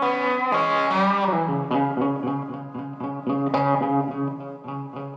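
Background music: plucked electric guitar notes with bending pitch over a steady bass line.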